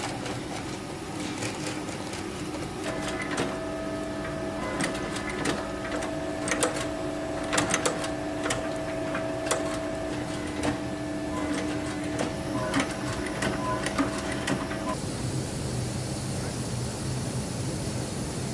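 A shoe-repair workshop machine running with a steady whine, with irregular sharp clicks and taps over it. About 15 s in it cuts off and gives way to a steady hiss.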